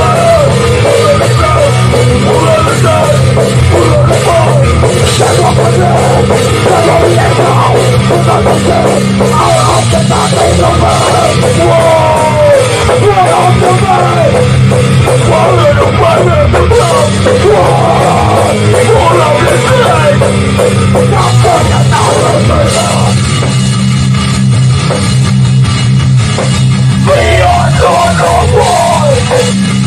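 Hardcore band playing live in a rehearsal studio at full volume: distorted electric guitars, bass and drum kit.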